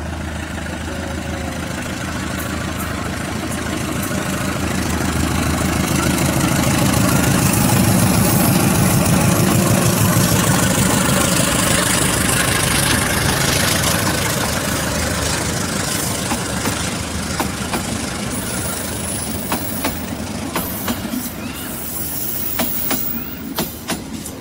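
Indonesian KAI diesel-electric locomotive passing close by with its train: the engine drone builds to its loudest about a third of the way in, then the passenger coaches roll past with rhythmic clacking of wheels over rail joints that grows toward the end.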